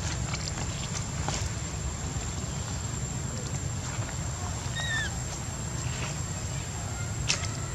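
Steady low rumble of wind on the microphone, with a thin steady high whine and scattered light rustles and clicks. About five seconds in comes one short high call that rises then falls, and a sharper click follows near the end.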